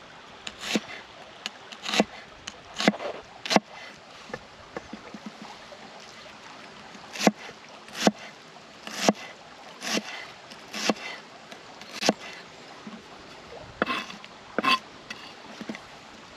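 A series of sharp knocks, roughly one a second, with a pause of a few seconds after the first handful.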